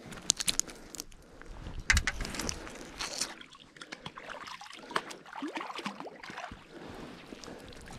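Small metal bits on a magnet-fishing magnet being handled and picked off: scattered clicks, scrapes and rustling, with a firmer knock about two seconds in.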